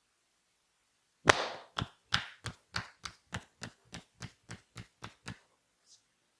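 A quick series of about fourteen percussive massage strikes on the body, roughly three a second. The first is sharp and loud and the rest grow steadily softer.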